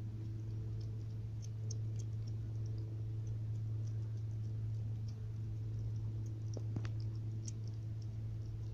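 Kittens eating porridge with chicken from a tray: a stream of small wet clicks and smacks from their chewing and lapping, with a somewhat sharper click near the end, over a steady low hum.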